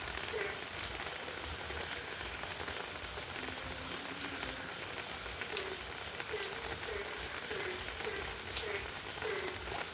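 Steady rain falling, with scattered sharper drop hits. A short low note repeats about twice a second through much of it.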